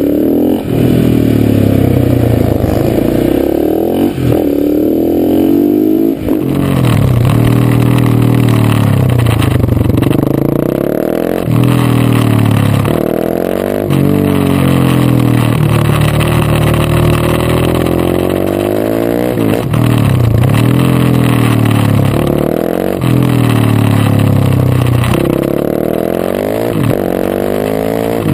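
KTM 690 SMC supermoto's single-cylinder engine heard from a camera mounted on the bike, revving up and falling back over and over as it accelerates and backs off around a track, with a few brief breaks in the sound.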